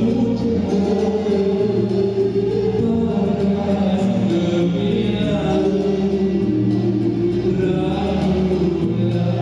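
Song with a man singing over backing music through stage loudspeakers, the bass holding long notes.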